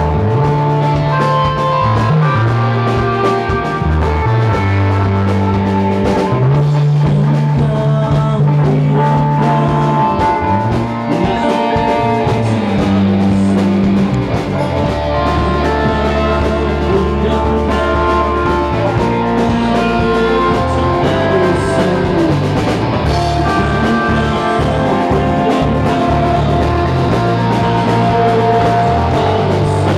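Rock band playing live: electric guitars, bass guitar and drum kit, loud and dense throughout.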